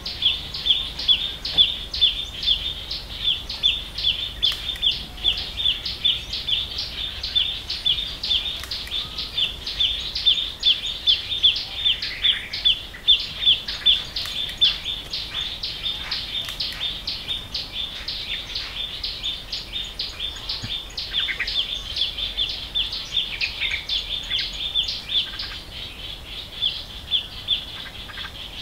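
A bird calling with a high, short chirp repeated steadily about three or four times a second, with a few other birds calling faintly now and then.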